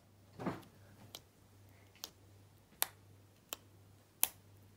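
Small plastic slime add-ins clicking against a plastic slime tub: six sharp clicks about three-quarters of a second apart, the first a duller knock.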